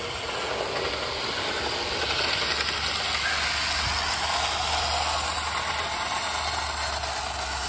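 Lionel O-gauge model train running on its metal track: a steady rushing rattle of wheels on rails that swells about two seconds in as the train draws near.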